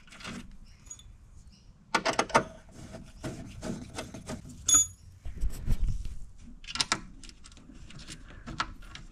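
A small metal screw is threaded by hand and turned with a screwdriver against a steel battery-box frame: scattered clicks, scrapes and metal taps, with a brief squeak about halfway through. The screw will not go in because its hole is out of line.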